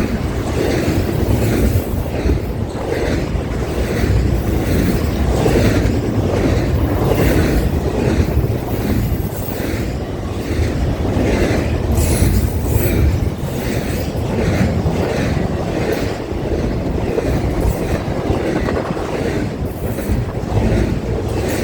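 Norfolk Southern train 200's cars rolling past: a steady rumble of steel wheels on rail, with a regular clickety-clack as the wheels cross the rail joints.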